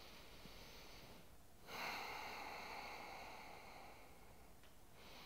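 Faint, steady breathing through the nose: one breath, a short pause, then a stronger, longer breath of about three seconds starting nearly two seconds in, with the next breath beginning near the end.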